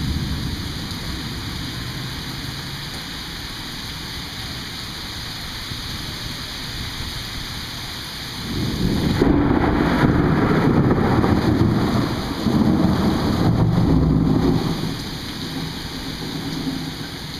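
Steady rain with a loud clap of thunder about halfway through, rolling in two surges for about six seconds before fading back to the rain.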